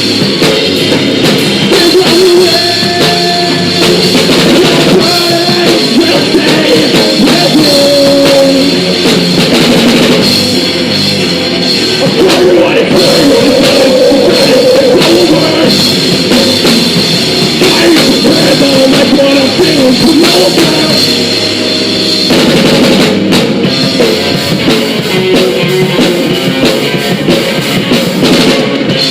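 Live rock band playing loudly on a full drum kit and guitar.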